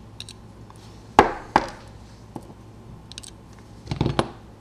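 Sharp taps and clicks of small lock parts and tools being handled and set down on a hard work surface: two crisp taps about a second in, faint ticks, then a quick cluster of knocks near the end.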